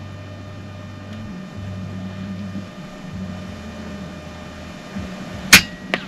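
One shot from an FX Impact M3 PCP air rifle, a single sharp crack about five and a half seconds in, fired from inside a pickup truck's cab, with a fainter knock just after it. A low hum comes and goes before the shot.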